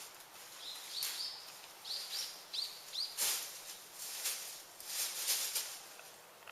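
A small bird calling in a run of short, falling chirps, about five over two seconds. Several brief bursts of hissing noise come in between and after them.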